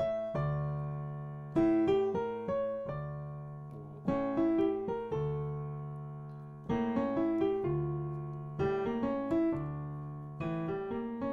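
Piano playing a minor 2-5-1 in D (Em7♭5, A7 altered, Dm): held left-hand chords under quick rising four-note arpeggios of a B♭ diminished seventh (B♭, C♯, E, G), a diminished seventh built a semitone above the A7's root, which brings out its third, seventh and flat nine. The phrases repeat about every two seconds, each run landing on a held note.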